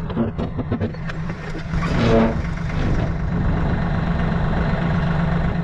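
A machine engine running steadily as a heavy skid steer brush cutter is flipped over. There are several metal clanks and knocks in the first second, and a short scraping groan of steel about two seconds in.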